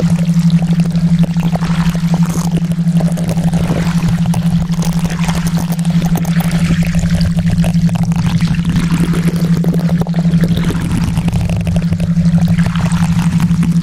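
Steady water ambience like pouring or trickling water, over a constant low hum tone of a theta-wave track.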